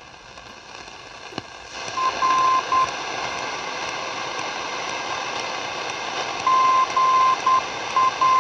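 Longwave non-directional beacon's Morse-code identifier heard through the loudspeaker of a Zenith Trans-Oceanic Royal 7000 shortwave/longwave radio. Faint hiss jumps to loud static about two seconds in as the beacon tunes in, after a click near 1.4 s. A steady beeping tone is keyed in groups of short and long marks: one group, a pause of several seconds, then two more groups near the end.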